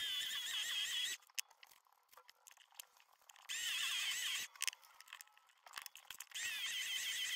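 Drill bit squealing as it bores into a small metal part on a bench drill press, in three spells of a wavering high-pitched squeal with near-silent gaps between them.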